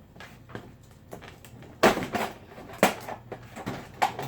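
Hands working at the plastic packaging of Nerf foam darts: a few sharp snaps and crackles of plastic, the loudest about two seconds in, then again about a second and two seconds later.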